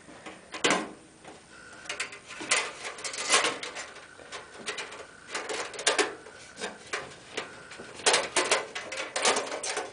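Irregular clicks and rattles of a thin metal I/O shield being pressed and worked into the rear opening of a PC case, trying to clip it into place.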